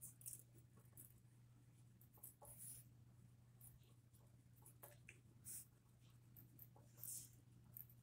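Faint scratching of a wooden pencil writing on paper, in short irregular strokes, over a steady low hum.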